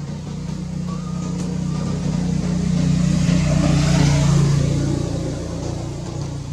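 A motor vehicle's engine humming as it draws near and passes, growing louder to a peak about four seconds in and then fading.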